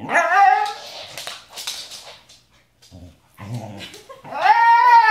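Husky "singing": a short rising whine-yelp at the start, then a long, wavering howl-like call from about four seconds in.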